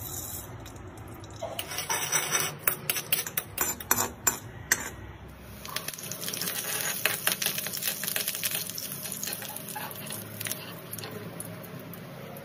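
Tempering for chutney in a kadai: mustard seeds crackling and spluttering in hot oil, a rapid run of pops from about two to five seconds in. After about six seconds, once the curry leaves go in, the oil sizzles steadily with scattered pops.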